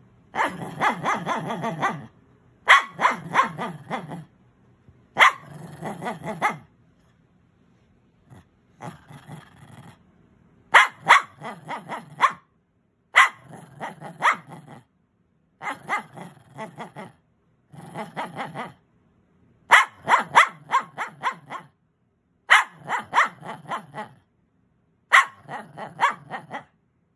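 Small long-haired dog 'talking': about eleven bouts of rapid, pulsing vocalizing, each a second or two long, with short pauses between; one bout about a third of the way in is fainter.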